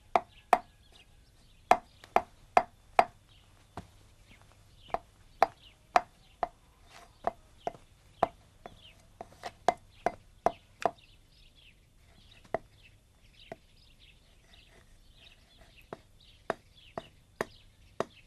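Wood being carved by hand with a blade: sharp, irregular knocks of the blade biting into the wood, some in quick pairs, thinning out for a few seconds past the middle before picking up again.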